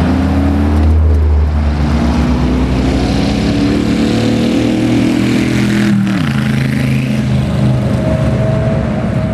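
Drag racing car engine running hard down the strip, its note climbing steadily as it accelerates. About six seconds in the pitch drops sharply, then holds steadier.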